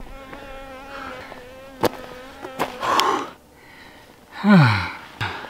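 A flying insect buzzing close to the microphone, a steady hum for the first two and a half seconds, with two sharp clicks. Near the end comes a man's loud sigh falling in pitch, winded from a steep climb.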